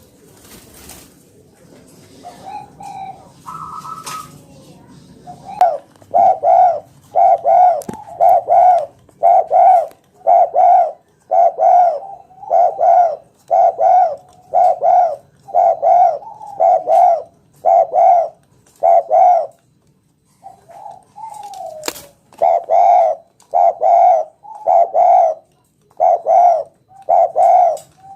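Spotted dove (tekukur) cooing: a long run of short, evenly repeated coos, about three every two seconds, after a quieter opening of a few seconds, with one pause of about a second and a half before the coos resume.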